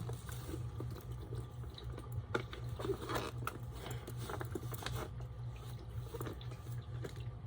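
Rustling, crinkling and small clicks from a new purse and its wrapping being handled, irregular and scattered, over a steady low hum.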